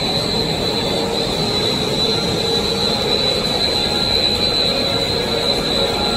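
High-speed straight line wire drawing machine running: a steady mechanical drone with a constant high-pitched whine over it.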